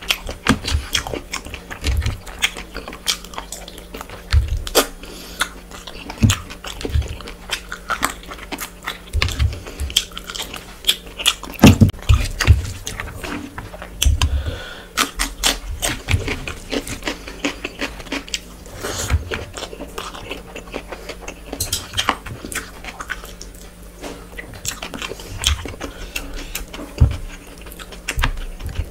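Close-miked eating by hand: chewing and biting with many sharp wet mouth clicks and crunches, as rice, mutton curry and cucumber are eaten, with scattered low thumps.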